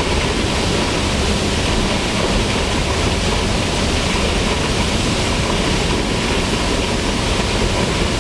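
Waterfall on a rain-swollen mountain stream, its falling water making a loud, steady, unbroken rushing noise.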